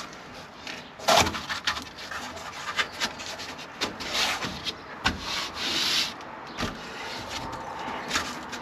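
A cut sheet of insulation being pushed and worked into a canopy panel frame: irregular rubbing and scraping with a few knocks, the sharpest about a second in, and a longer stretch of rubbing in the middle.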